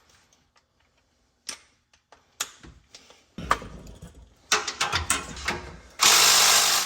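Ratchet wrench and socket clicking and knocking against metal while working a stuck exhaust bolt, with scattered clicks first and then a loud, fast run of ratchet clicking about six seconds in.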